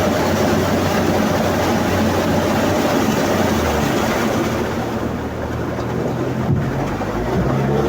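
The Toyota 109-hp engine of an amphibious all-terrain vehicle on low-pressure tyres, running steadily under load. Its note shifts about halfway through, and there is a brief knock near the end.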